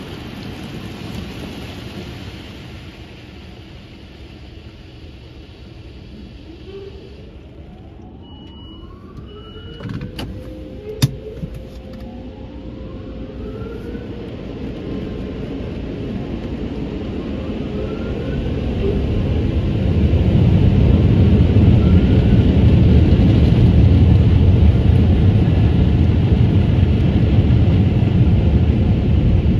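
Automatic car wash heard from inside the car: water spray hissing on the windshield, easing off into a quieter stretch with two short beeps, a sharp click and a few rising whines. From about two-thirds of the way through, the air dryers blow loudly and steadily over the car.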